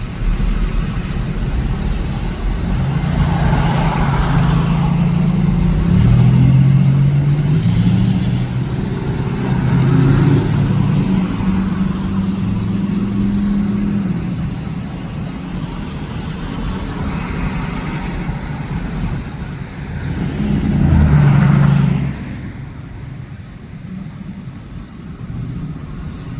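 Street traffic: motor vehicles passing one after another, their engines rising and falling. The loudest pass comes about 21 seconds in, and it quietens after it.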